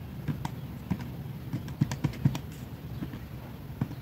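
Keys of a scientific calculator being pressed: a string of irregularly spaced taps as a sum of three amounts is entered.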